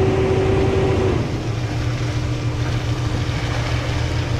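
Concrete pump's engine running steadily under load while pumping concrete through 3-inch hose. About a second in, its note drops to a slightly lower, softer pitch.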